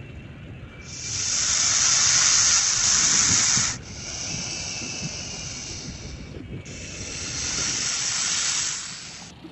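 Snake hissing sound effect in three long, drawn-out hisses: a loud one from about a second in, a quieter one after it, and another loud one near the end.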